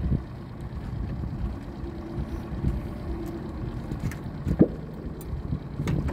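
Boat motor idling in neutral, a low steady rumble, with a few knocks on the boat. A sharp knock about four and a half seconds in is the loudest sound.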